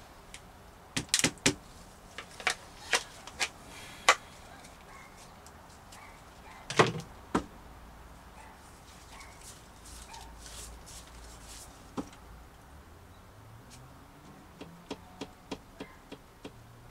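Scattered sharp clicks and light knocks from a plastic dustpan and brush sweeping up bits of broken glass and bumping against a cabinet. There is a flurry of clicks in the first few seconds, a louder double knock about seven seconds in, and a few more clicks near the end.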